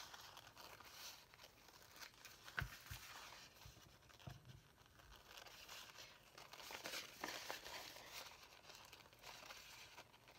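Faint snipping of scissors trimming around a map glued onto a paper napkin, with paper rustling as the piece is turned and a few sharper clicks.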